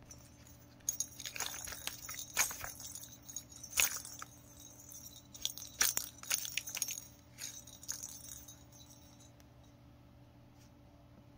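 Toy bell ball jingling in short, irregular bursts as a cat bats it around inside a cardboard accordion scratching board, dying away after about eight seconds.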